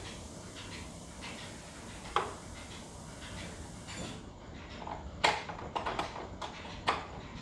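A steel spanner clinking and clanking against a motorcycle's front axle nut and hub as it is fitted and turned: one sharp clink about two seconds in, then a quick run of sharp metallic clicks in the second half.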